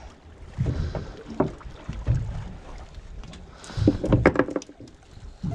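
Wind rumbling on the microphone and handling noise on a small fishing boat. About four seconds in there is a short cluster of knocks and slaps as a just-unhooked sargo is tossed back over the side.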